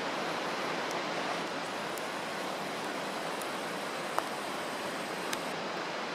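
Steady outdoor rushing noise with no clear pitch, and a couple of faint clicks, one about four seconds in and a smaller one just after five seconds.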